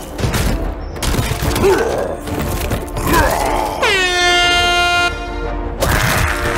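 Background music with a truck air-horn blast laid over it as a sound effect about four seconds in. The horn dips briefly in pitch at its start, then holds steady for about a second.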